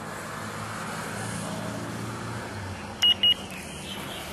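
Two short, high electronic beeps from a handheld digital thermometer as it takes a temperature reading, over a steady low background hum.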